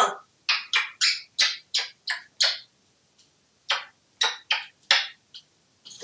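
An African grey parrot making a string of short, raspy chirps: about eight in quick succession, a pause, then about five more.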